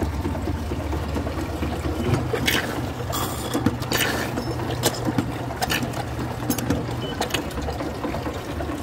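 Taylor soft-serve ice cream machine running with a steady hum while ice cream mix is poured in, with liquid splashing and a few clicks. A second, higher steady tone joins the hum about two seconds in and stops about seven seconds in.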